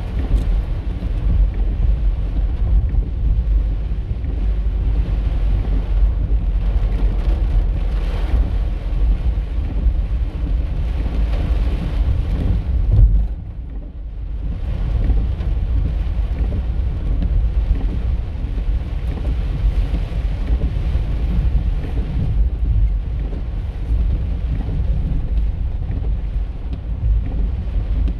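Heavy rain pelting a moving car, heard from inside the cabin, over a steady low rumble of the car and its tyres on the wet road. The noise drops briefly a little past halfway, then builds again.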